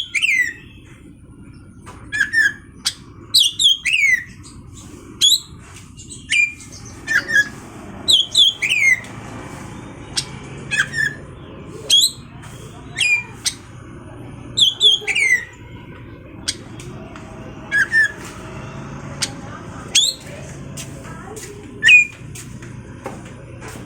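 Oriental magpie-robin (kacer) singing: loud, sharp whistled notes that slide down in pitch, repeated every second or so with short pauses, over a steady low background hum.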